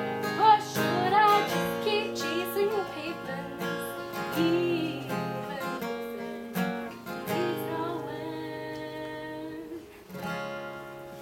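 Acoustic guitar accompanying a woman's singing voice, the song's closing bars. The singing fades out after the first half and the guitar ends on a final strummed chord about ten seconds in, left ringing.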